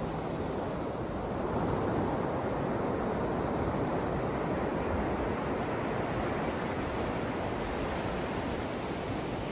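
Ocean surf breaking on the beach: a steady rush of waves that grows a little louder about a second and a half in.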